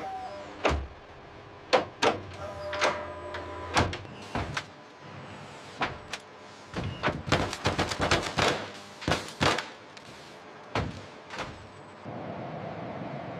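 Industrial robot arms and assembly machinery clicking and clanking irregularly, the strokes coming thick and fast about seven to nine seconds in. Near the end a steady mechanical hum sets in.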